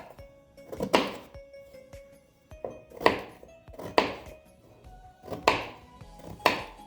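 Soft background music with five dull knocks on a hard surface, spaced about a second apart, from kitchen work in food preparation.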